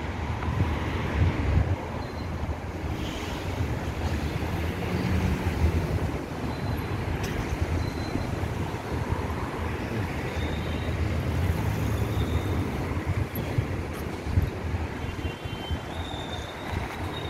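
Road traffic on a city street, cars driving past, with wind rumbling on the microphone.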